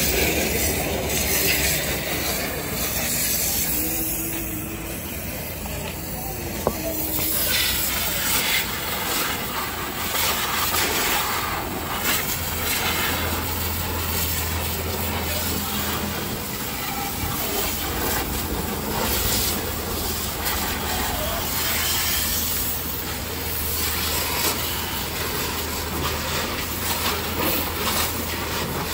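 High-pressure washer jet hissing as it sprays water onto a car's underside and wheels, over the steady low hum of the washer's pump motor.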